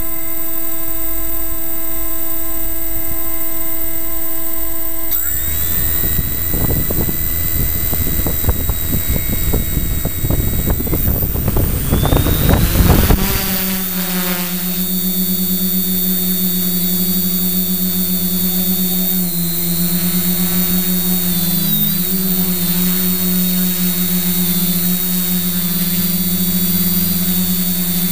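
A DJI Zenmuse H3-3D gimbal hums after initialising, a steady tone in several pitches at once, which the owner says it should not make. About five seconds in, the quadcopter's AKE Dark Magic brushless motors spin up with a rising whine and a gusty rush of air from the 11-inch carbon-fibre props. From about fourteen seconds the motors run at a steady drone with a higher whine above it as the quadcopter flies.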